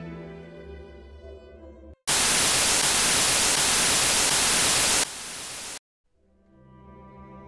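Sombre bowed-string music breaks off about two seconds in to loud, harsh television static hiss, which drops to a quieter hiss about three seconds later and then cuts off. After a brief silence the strings fade back in, as the channel switches.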